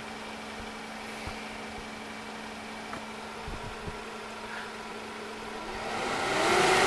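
Seaflo 12-volt high-flow blower fan running with a steady hum at a low speed setting, then spinning up near the end with a rising whine and a growing rush of air as its speed controller is turned up to full blast.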